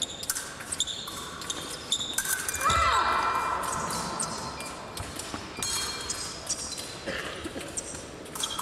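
Épée fencers' footwork on the piste: quick stamps and knocks, blade clicks and brief shoe squeaks, with the echo of a large hall. About two and a half seconds in, a steady electronic tone from the scoring machine sounds for a couple of seconds: a touch has registered and the bout halts.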